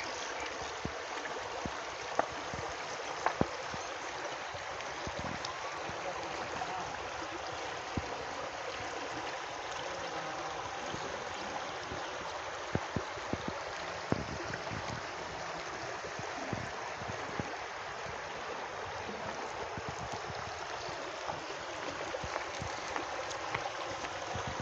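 Shallow stream of water flowing over stones: a steady, even rush of water, with a few brief clicks now and then.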